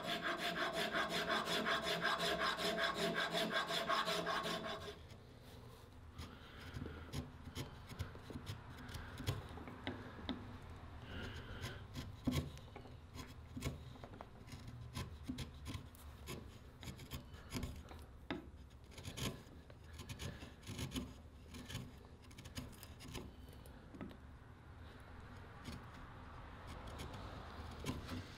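Wood being worked with a hand rasp or file: rapid, even rasping strokes for about five seconds, then quieter, scattered scratching and light ticks.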